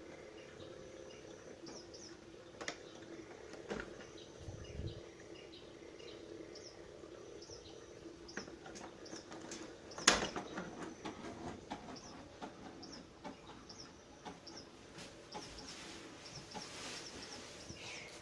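A Fisher-Price baby swing's nature-sounds track plays through its small speaker: recorded birds chirp over and over against a steady background. There is a sharp click about ten seconds in.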